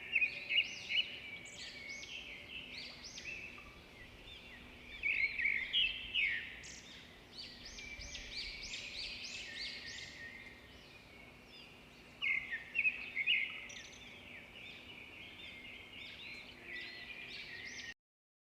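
A chorus of small songbirds chirping and trilling, many short calls overlapping, with louder flurries near the start, around five seconds in and around twelve seconds in. The sound cuts off suddenly just before the end.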